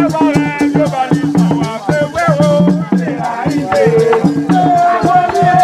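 Asson gourd rattles shaken in a fast, steady rhythm under voices singing a Vodou chant, with one note held long near the end.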